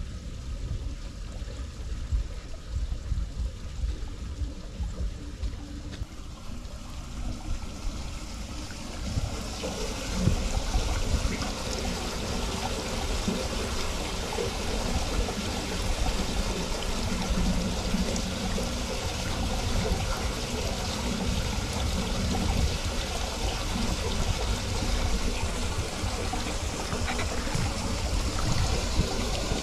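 Floodwater running and trickling steadily through a curbside storm drain grate, getting louder about ten seconds in when heard up close. The drain is flowing freely after being cleared of clogging grass and debris.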